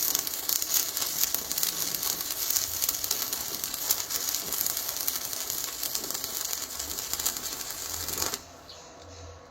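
Electric arc welding crackling steadily as a bead is laid; the arc cuts off abruptly near the end.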